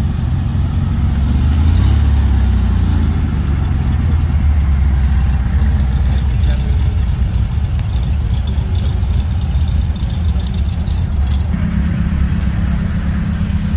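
Air-cooled Volkswagen flat-four engines running: a lowered Beetle drives off past the camera, and about three-quarters of the way through the sound settles into the steadier idle of a bay-window Type 2 bus close by.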